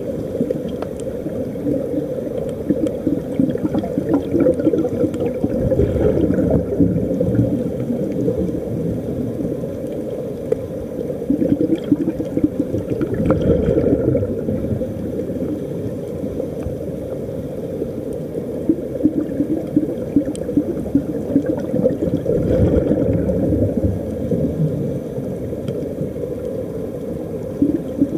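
Continuous low underwater bubbling and gurgling of air escaping from a diving helmet's air supply, with a few heavier surges of bubbles.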